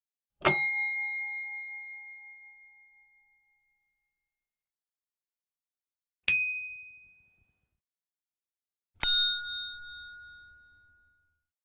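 Three separate notification dings, each a sudden bell-like strike that rings and fades. The first, about half a second in, rings longest; the second, about six seconds in, is slightly higher and dies away within a second; the third, about nine seconds in, is lower and fades over a second and a half.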